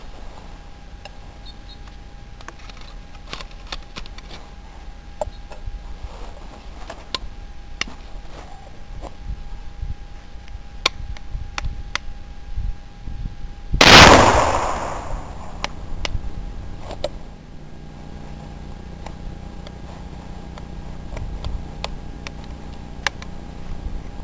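Single shot from an 1881 Erwin .38 carbine converted to a black-powder muzzleloader: one loud report about halfway through with an echo trailing off over a second or so. A few faint clicks come before it.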